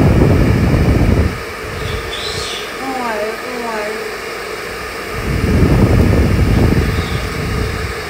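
Handheld hair dryer blowing with a steady hum and rush of air. The rush swells much louder twice, at the start to about a second in and again from about five to seven seconds.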